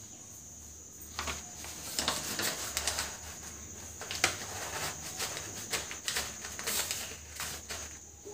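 Newspaper rustling and crackling as crisp deep-fried moong dal is shifted onto a fresh sheet to drain its oil. It comes as a run of irregular light crackles and rustles starting about a second in, with a steady high-pitched tone underneath.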